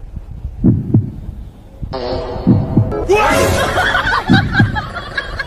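Low double thumps like a heartbeat, three lub-dub pairs, picked up through a karaoke microphone pressed against a fluffy pet's body. From about two seconds in they are joined by a hiss and a jumble of higher sounds.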